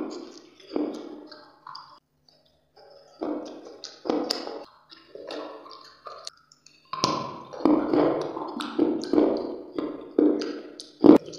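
Close-up bites and chewing of hard, crunchy brown slabs. The crunches come irregularly at first, then run at about two a second in the second half, with one sharp, loud crunch near the end.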